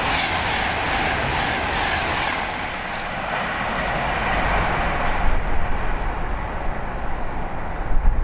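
A train passing at speed, its rushing rail noise fading away over the first few seconds, with wind buffeting the microphone in gusts toward the end.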